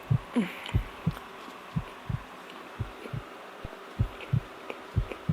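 Close-miked chewing of soft donut: a steady run of dull low thuds, about three a second, with faint wet mouth clicks.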